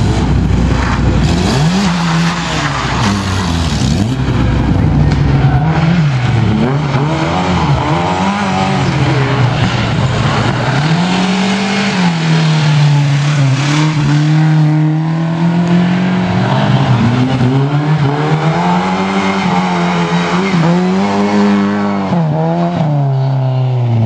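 Rally car engine revving hard, its pitch climbing and dropping again and again through gear changes and throttle lifts.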